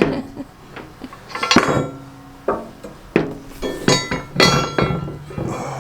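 Steel snow-plow parts and hand tools clinking and knocking together during assembly: several sharp metallic knocks, each ringing briefly.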